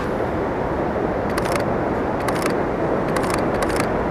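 Sony A7 II camera shutter clicking in four short bursts about a second apart, over a steady rush of surf and wind.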